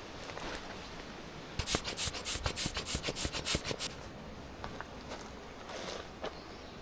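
Dry wood being sawn by hand in quick rasping strokes, about four or five a second, starting about a second and a half in and lasting around two seconds.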